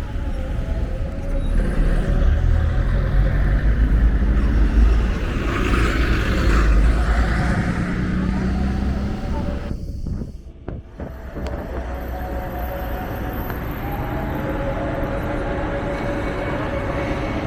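Street traffic noise: a vehicle engine running close by with a heavy rumble for the first ten seconds or so. After a brief drop about ten seconds in, a steadier, lighter traffic hum follows.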